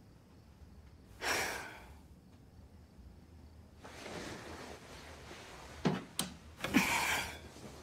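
A woman in bed sighing about a second in, then bedding rustling softly as she shifts and turns over, with two sharp clicks and a second, louder breath near the end.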